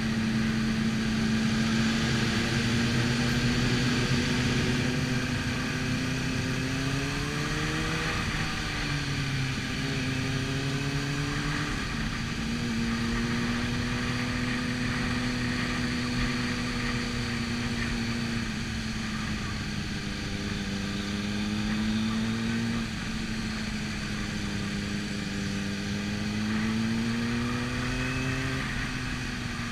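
Motorcycle engine heard from onboard, running steadily at moderate revs with wind noise. The engine note climbs and drops as the throttle is opened and eased, once after several seconds and again near the end.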